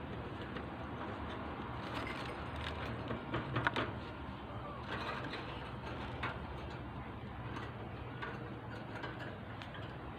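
Budgerigars in a cage: scattered clicks and short chirps, busiest about two to four seconds in, over a steady low hum.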